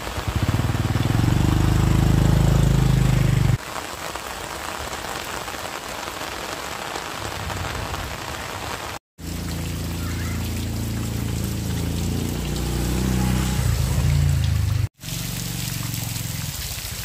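A small motorbike engine pulls away in steady rain, and after a few seconds only the rain's hiss remains. About nine seconds in a motorbike engine is heard again, growing louder over several seconds, then running on more quietly near the end, with rain throughout.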